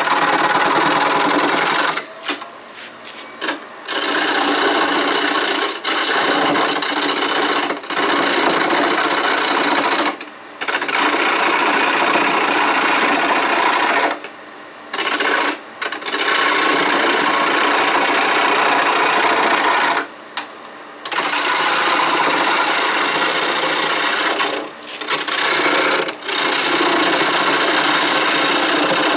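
Roughing gouge cutting a walnut handle blank spinning on a wood lathe at a little over 1,000 RPM, a loud rushing scrape of wood being sheared away. It comes in passes of a few seconds each, with short breaks where the tool comes off the wood.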